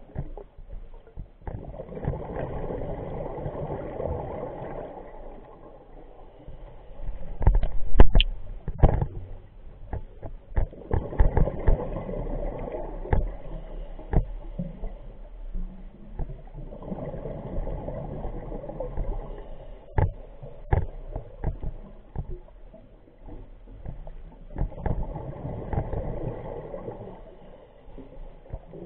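Scuba diver breathing through a regulator: exhaled bubbles rumble in bursts of about three seconds, roughly every seven seconds, with scattered clicks and knocks, loudest in a cluster about eight seconds in.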